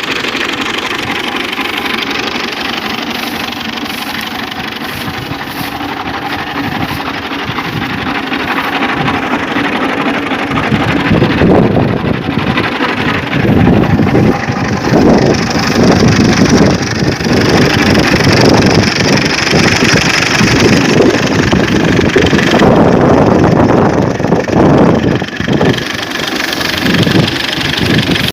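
Engine of a wheat harvesting machine running steadily, growing louder and rougher about eleven seconds in.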